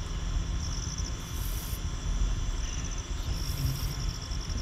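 Insects chirping outdoors in short, repeated trills, over a steady low rumble.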